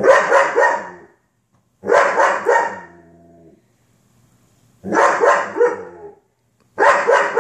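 A German Shepherd barking in four short volleys of a few barks each, with brief pauses between them, reacting to what is on the television.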